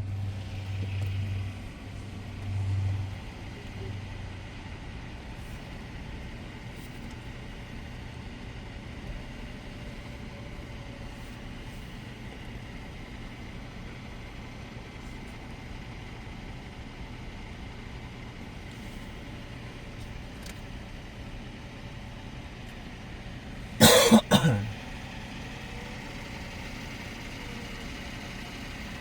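Road traffic running steadily, heard through an open car window while the car waits at a red light. A few low pulses come in the first three seconds, and one loud, sudden burst about a second long comes near the end.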